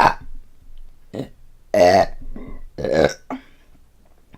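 A woman burping: a string of short belches, the two loudest about two and three seconds in, with softer ones around them.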